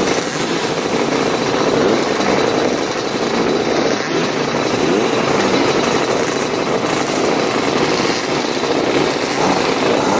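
Several racing scooter engines running together on the grid. The mix of engine noise is dense and steady, with pitches rising and falling as individual engines are revved.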